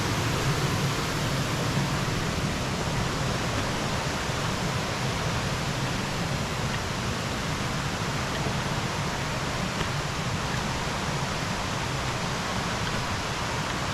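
Steady rushing of a waterfall's falling water, an even hiss with no breaks.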